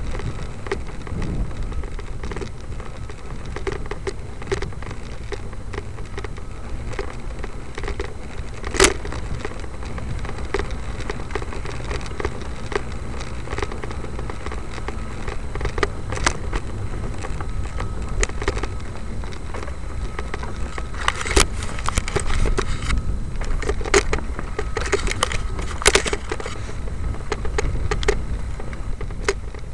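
Low wind rumble on the microphone with irregular crackling clicks and rattles throughout, from a camera moving along a paved trail. One sharp click comes about nine seconds in, and the clicks grow busier between about 21 and 26 seconds.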